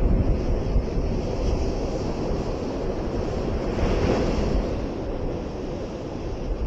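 Steady rushing wind noise on the microphone, heaviest in the low rumble, swelling a little about four seconds in and easing near the end.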